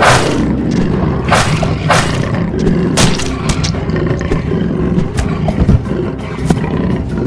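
Big cats snarling and roaring as they fight, with several sudden sharp sounds cutting in.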